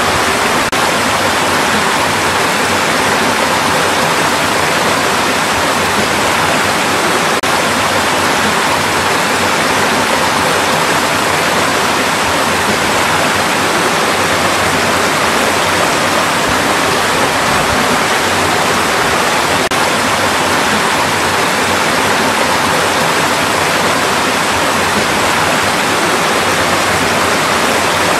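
Mountain valley stream flowing: a loud, steady rush of water.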